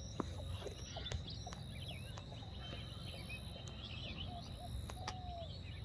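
Outdoor rural ambience: scattered short bird chirps over a steady high whine and a low steady rumble, with a couple of sharp clicks. About five seconds in, a longer call holds its pitch and then falls.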